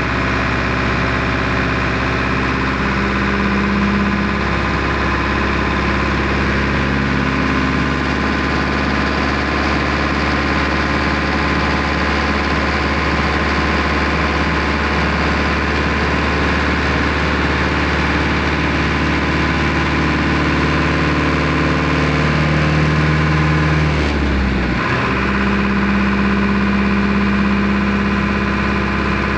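Powertrac Euro 55 tractor's diesel engine running steadily at raised speed, its pitch shifting slightly up and down, with a brief dip about 24 seconds in. The engine is being held at speeds where the right-side mudguard resonates and vibrates, which the owner takes for a manufacturing fault.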